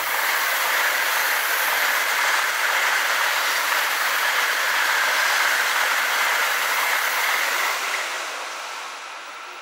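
Tokaido Shinkansen bullet train passing at speed: a steady rushing noise of wheels and air that fades away near the end as the train goes into the tunnel.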